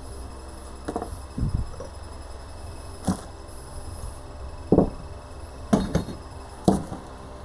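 About six irregular knocks and clunks, the sound of metal tools and fork parts being handled and set down on a workbench, over a steady low hum.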